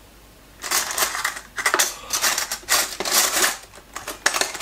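Metal cutlery clattering as a fork is picked out, a run of irregular clinks and rattles starting about half a second in.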